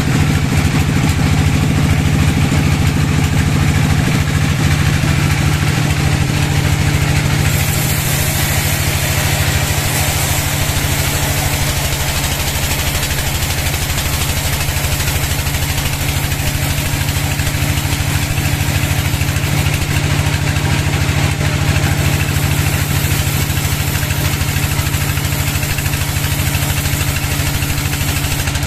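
Band sawmill running with a steady low drone. About a quarter of the way in, a high hiss joins as the blade cuts through a wooden slab. The hiss dips briefly about three-quarters through, then returns.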